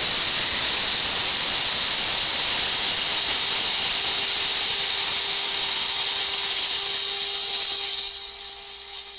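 Electric blade coffee grinder running, grinding whole black peppercorns; a steady whine comes in about a third of the way through. It gets quieter near the end and stops.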